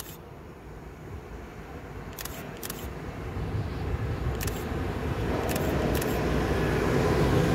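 Approaching freight train of tank wagons hauled by a Siemens Vectron electric locomotive, its rolling rumble growing steadily louder as it nears. A few short, sharp clicks sound over it.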